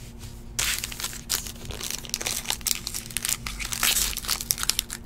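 Foil wrapper of a trading-card pack crinkling and tearing as it is pulled open by hand, a dense run of crackles starting about half a second in.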